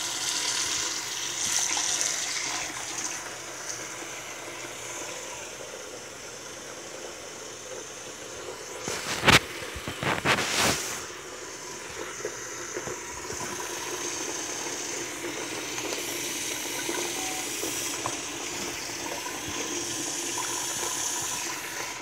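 Bathroom sink tap running, a steady stream of water splashing into the basin and down the drain. Two sharp knocks about halfway through, the first the loudest sound.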